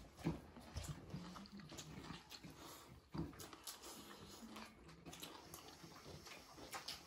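Faint close-up eating sounds: chewing and lip smacking, with many small clicks and soft taps of hand-eaten rice on steel plates.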